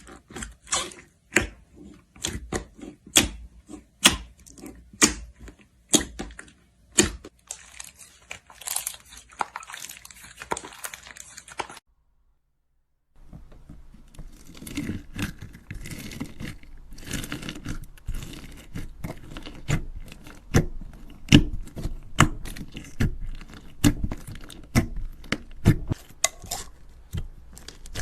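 Slime being squeezed and stretched by hand, giving sharp pops and crackles, about one a second at first. It goes silent briefly about twelve seconds in, then returns as a denser, busier crackling.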